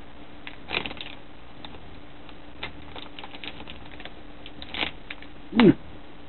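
Crinkly plastic sweet packet being handled, rustling and crackling in scattered small clicks, with a brief louder falling sound near the end.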